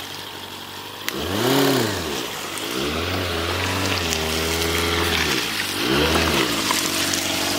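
A vehicle engine revving up and down several times, each rev rising and falling in pitch over about a second, with a longer held rev in the middle, over a steady rushing background.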